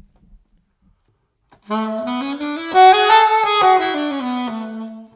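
Alto saxophone playing the F# major scale with each note tongued, stepping up and back down to a held low F#, after a short silence.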